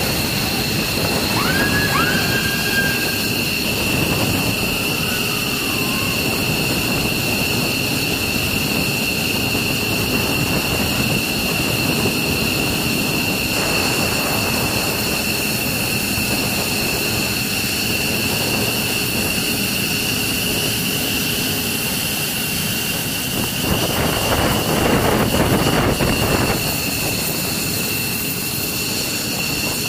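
F-15 Eagle fighter's twin Pratt & Whitney F100 turbofans running at taxi power: a steady jet noise with a constant high-pitched whine. A short rising whistle comes near the start, and the noise swells louder for a couple of seconds about 24 seconds in.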